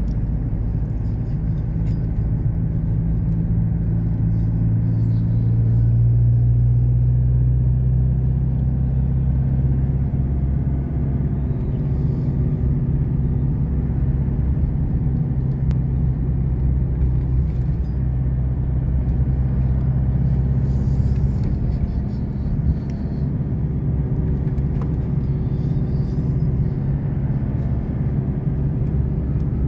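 Car engine and road noise heard from inside the cabin of a moving car: a steady low drone that rises in pitch about five seconds in, then holds.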